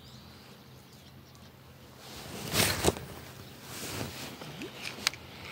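Rustling and handling noise from a spinning rod and reel being worked. The loudest is a swish about two and a half seconds in, with a sharp click near the end.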